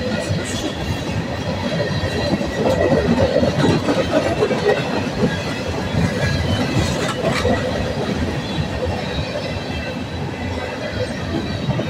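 Freight train cars rolling past: a steady rumble and clatter of wheels on the rails, with faint steady high wheel squeal over it. It swells a little a few seconds in.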